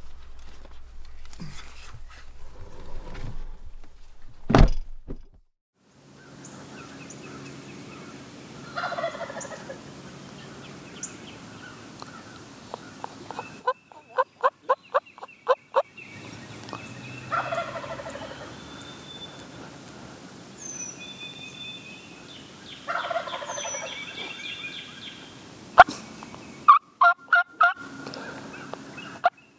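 Wild turkey gobbler gobbling three times, each a rapid rattling call about a second long, with songbirds chirping. A single loud thump comes a few seconds before the first gobble, and runs of short, sharp notes are heard between and after the gobbles.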